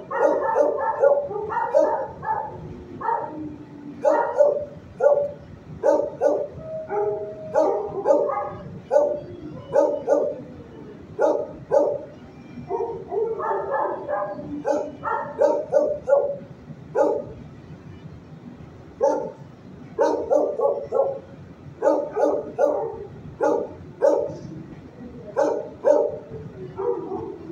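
Shelter dogs barking over and over in the kennels, short barks coming thick and often overlapping, with a brief lull about two-thirds of the way through.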